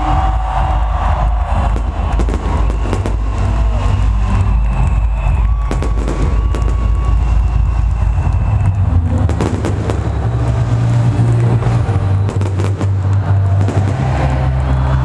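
Fireworks going off in a rapid, irregular series of sharp bangs and crackles, over loud electronic dance music with a heavy bass.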